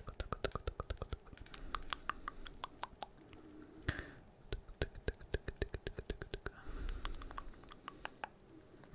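Fingertips and nails tapping quickly on the hollow vinyl head of a Funko Pop figure: runs of light, sharp clicks, several a second, with a short lull near the middle. Soft breathy mouth sounds come in between the taps.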